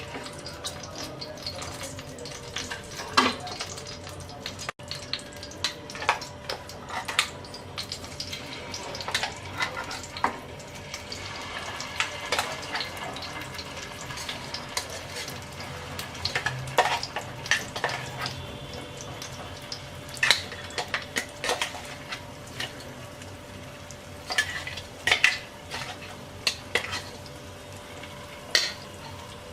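Blended spice paste sizzling as it goes into hot oil in a kadai, with a steady frying hiss. A spoon knocks and scrapes against metal again and again throughout.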